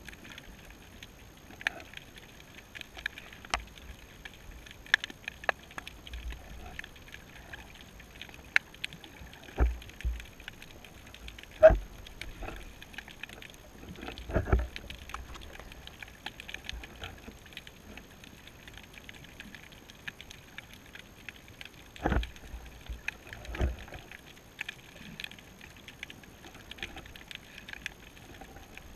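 Underwater ambience picked up through a camera housing: a low hiss with scattered sharp clicks and several dull knocks and thumps. The strongest fall near the middle and again about three-quarters through, as the baited rig and bait are jostled in the surge.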